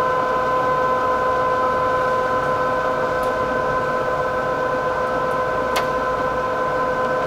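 Lehigh gap-type engine lathe running under power, a steady whine.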